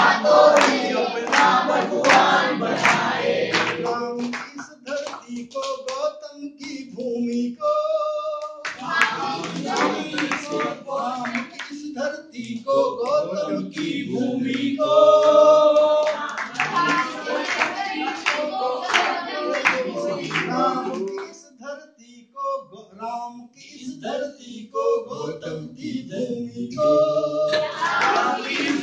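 A group of voices singing a song together, with hand clapping in time that is heaviest at the start and again near the end.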